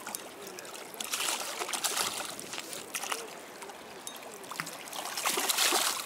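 A hooked shad thrashing and splashing at the water's surface as it is reeled in, in two bouts of splashing, the louder one near the end.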